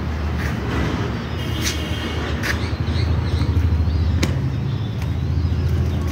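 A steady low engine drone, like a motor vehicle running nearby, swelling slightly after a few seconds, with a few short bird chirps and one sharp click about four seconds in.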